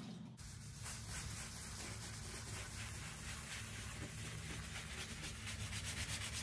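Gloved hand scrubbing a stone tub ledge with a sponge pad: a faint, steady rubbing over a low hum.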